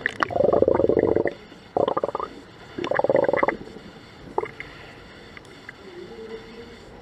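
Scuba regulator exhaust bubbles underwater as a diver breathes out: three loud bubbling bursts in the first few seconds, then a quieter stretch with faint clicks.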